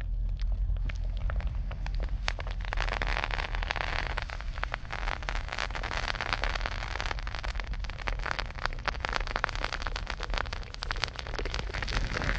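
Molten salt poured from a crucible onto a raw sweet potato and damp soil, sizzling and crackling steadily as it hits; the crackling thickens about two seconds in. A low steady rumble runs underneath.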